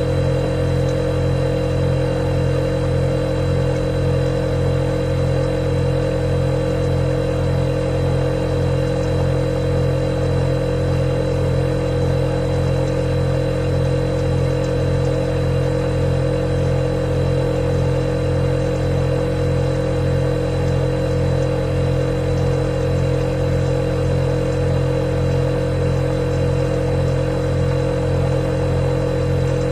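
Refrigerator running with a steady, unchanging hum: a deep drone with a fainter thin high whine above it.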